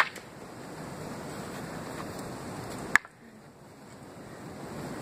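Wind noise on the microphone, with a sharp wooden knock at the start as two carved stick swords clash, and another, louder sharp knock about three seconds in, after which the wind noise drops away.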